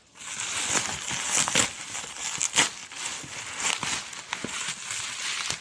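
Crinkling and rustling with irregular sharp clicks, like something being handled or crumpled.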